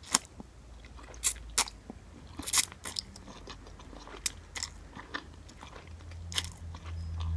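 Mouth sounds of eating instant ramen noodles off a fork: wet smacks, chewing and scattered clicks, with a short slurp about two and a half seconds in. A low hum swells near the end.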